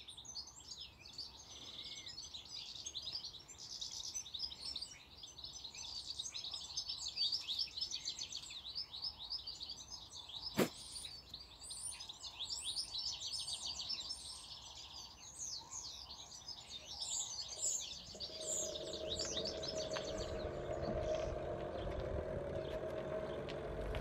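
Garden birdsong: a dense chorus of quick chirps and trills from several birds. A single sharp click about ten seconds in; in the last few seconds the birds thin out and a low steady hum comes in.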